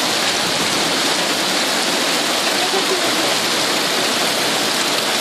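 Heavy hail mixed with rain pelting a wet street and brick paving: a dense, steady hiss of countless small impacts.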